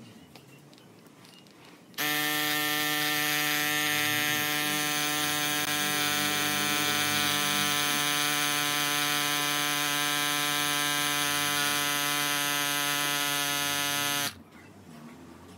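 RockBros A8 cordless mini electric air pump switches on about two seconds in and runs with a steady, even-pitched buzz while inflating a bicycle tyre, then stops abruptly near the end.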